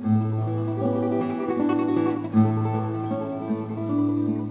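Background music led by plucked acoustic guitar, with a sustained low note beneath it.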